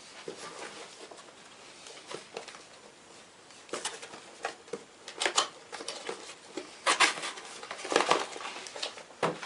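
Unboxing a cordless phone: a cardboard box being opened and its packaging handled. There are irregular clicks, rustles and light knocks, sparse at first and busier from about four seconds in.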